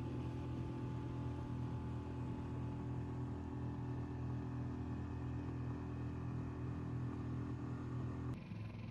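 Small outboard motor on a boat running at a steady speed, an even buzzing hum. Near the end it changes abruptly to a quieter, lower engine sound.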